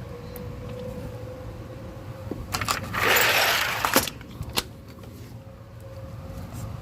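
Distant outdoor tornado warning siren sounding one steady tone under a low rumble. A loud rush of noise lasting about a second, with a few sharp knocks around it, stands out near the middle.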